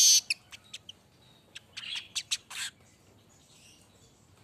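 Manyar weaver birds calling. A loud buzzing sizzle cuts off right at the start, followed by a quick string of short, sharp, high chips and ticks over the next two and a half seconds, then only faint calls.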